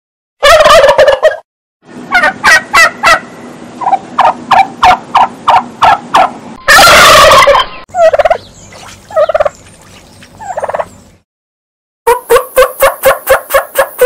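Male turkeys gobbling: quick runs of warbling, falling call notes in several separate bursts, with abrupt breaks between them. A loud, noisy burst of about a second comes roughly seven seconds in.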